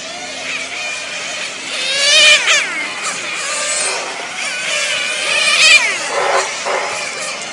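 Nitro-powered RC touring cars racing past, their small two-stroke glow engines whining high and sweeping up and down in pitch as they rev and pass. The loudest passes come about two seconds in and again just before six seconds.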